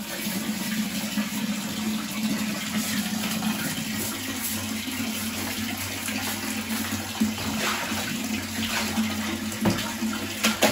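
Water running steadily and splashing as a bathroom is rinsed down after scrubbing, with a steady low hum beneath it.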